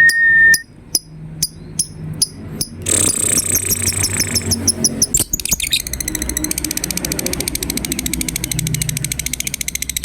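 Lovebird calls: a held whistled note, then sharp chirps repeated about twice a second, a dense burst of chirping, and from about six seconds in a long rapid chattering trill, the 'ngekek' call.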